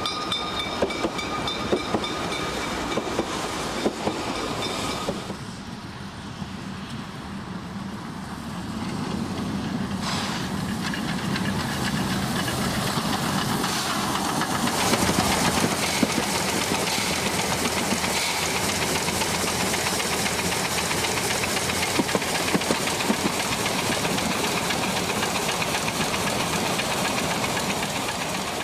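Saxon IV K narrow-gauge steam locomotive 99 1574-5 running close by, steam hissing from around its cylinders over the knocking of its running gear. A steady high tone sounds for the first five seconds, and the hiss grows loud from about ten seconds in.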